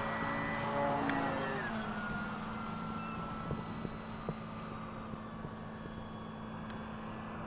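Electric motor and propeller of an FMS PA-18 Super Cub RC plane flying overhead, a steady whine that drops in pitch about a second and a half in and then holds lower and slightly quieter.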